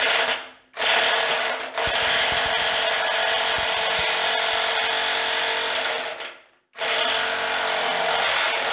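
Corded half-inch impact wrench hammering in reverse on a deep socket to break loose a water heater's anode rod plug. It runs in three goes: a short burst, a long run of about five seconds, then another run near the end. The bolt comes loose without rounding off, with a horrific sound.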